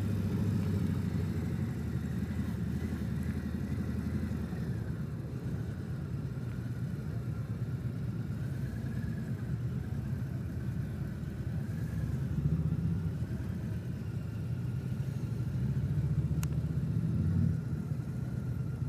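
Harley-Davidson Tri-Glide trike's V-twin engine running at low speed, a steady low rumble that swells twice, about two-thirds of the way through and again near the end.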